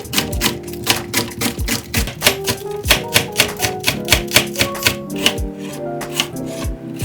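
Kitchen knife chopping on a cutting board, quick sharp strokes several a second, over background music with plucked instrument notes.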